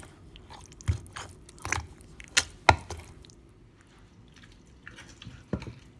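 Wooden pestle mashing a wet fish and chili mix in a clay mortar: soft squishing with four dull knocks in the first three seconds, then quieter, with a couple of faint clicks near the end.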